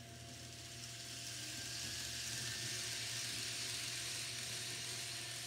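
N scale model commuter train running past on the track: a whirring rush of wheels and motor that swells to a peak about halfway through and fades near the end.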